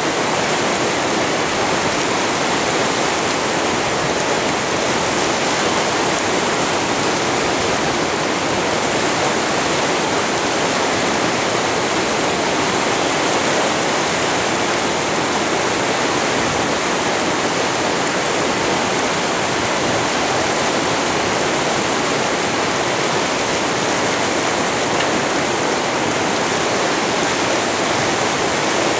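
Whitewater rapids in an artificial slalom channel, rushing loudly and steadily.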